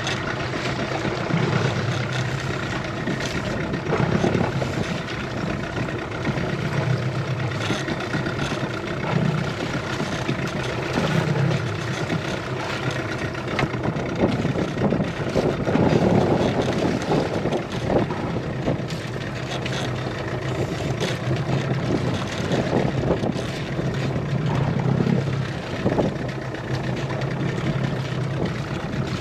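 Boat engine running steadily at low speed, kept idling to hold the boat against a strong current.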